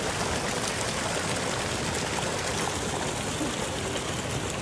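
A stream flowing steadily: an even, unbroken rush of running water.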